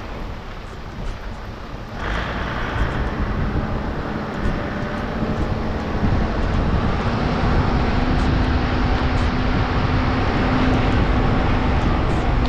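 A vehicle driving along a wet, rough dirt track: its engine running with a steady hum that rises slightly in pitch, under a constant rush of tyre and wind noise on an outside-mounted microphone. The noise gets louder about two seconds in.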